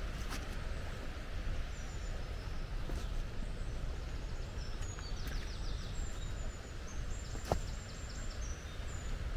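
Small songbirds singing high, thin notes and short trills over a steady low rushing noise, with a few faint clicks.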